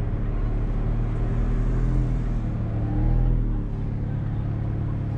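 Tuned VW Golf GTI TCR's 2.0-litre turbo four-cylinder, fitted with a Milltek 3-inch downpipe and no particulate filter, heard from inside the cabin at low revs. It runs steadily, swells and rises slightly in pitch about three seconds in, then eases off.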